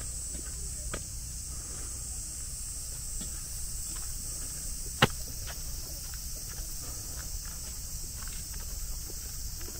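Steady high-pitched drone of summer insects, with light footsteps on a path and one sharp click about five seconds in.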